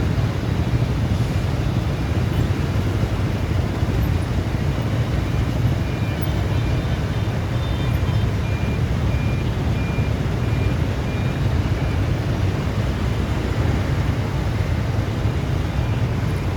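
Steady low outdoor rumble of the kind road traffic or wind makes, with a run of short, evenly spaced high beeps in the middle.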